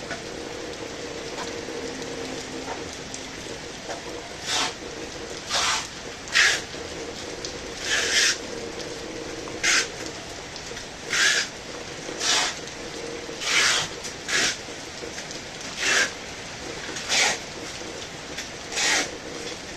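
Steady hiss of heavy rain. About four and a half seconds in, a string of short rasping bursts starts, roughly one every second or so, and they are the loudest sound.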